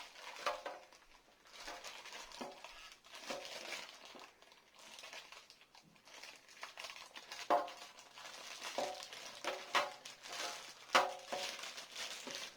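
Plastic packaging being crinkled and pulled open by hand, irregular crackles and clicks with a few sharper snaps in the second half.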